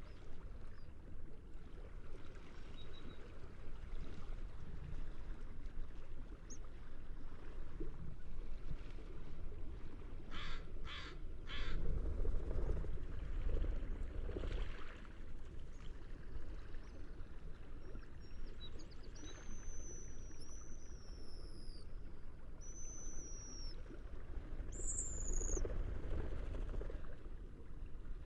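Steady low sea and wind noise at the shore, with a seagull giving three quick calls about ten seconds in. Later, high thin falling whistles from birds repeat several times.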